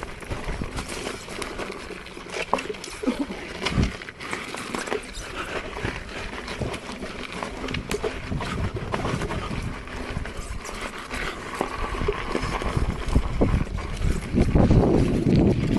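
Off-road riding noise from an electric unicycle on a rough trail: continuous crunching with scattered knocks from the tyre on stony ground, and wind buffeting the microphone, gustier near the end.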